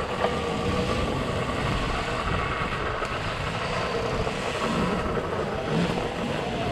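A dirt bike running along an off-road trail, with a steady whine over a continuous rumble.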